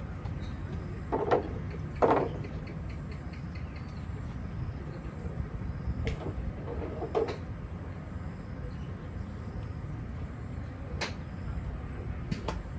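Golf clubs striking balls at a driving range: scattered sharp clicks, the loudest about two seconds in, with more spaced through the rest. A steady low rumble runs underneath.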